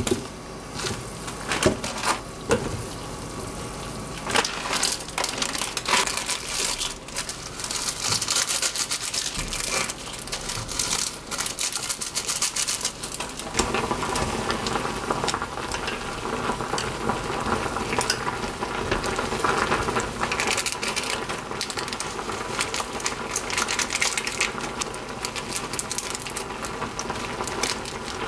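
A pot of water at a rolling boil, bubbling steadily, with a few sharp knocks in the first seconds as a dried instant-noodle block is dropped in. From about halfway the bubbling grows fuller as the softening noodles are stirred in the boiling water with wooden chopsticks.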